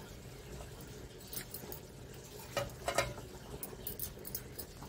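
Potato curry simmering in an open pan on a gas stove: faint, scattered pops and clicks, a little stronger about two and a half to three seconds in and again near the end.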